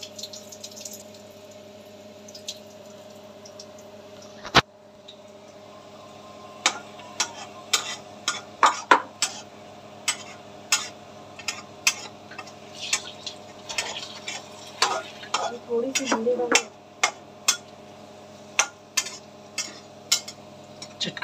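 Steel kitchen utensils clinking and knocking over and over, roughly one or two strikes a second, with one loud knock about four and a half seconds in, over a steady low hum.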